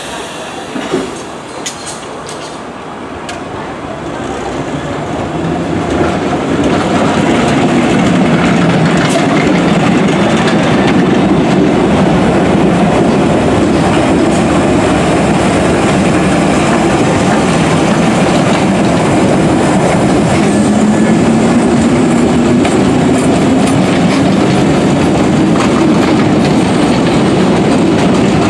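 London Underground 1962 Stock rail adhesion train running along the platform. The sound of its wheels on the track grows over the first six seconds into a steady loud rumble, and a low tone rises in pitch over the last several seconds.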